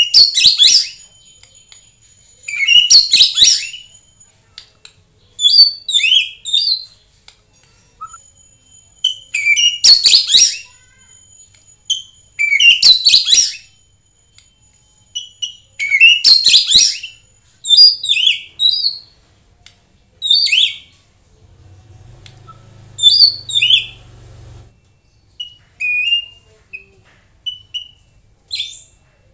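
White-rumped shama (murai batu) singing: loud phrases of harsh, crackling notes mixed with quick high whistles, repeating every few seconds, then softer short whistled notes over the last stretch.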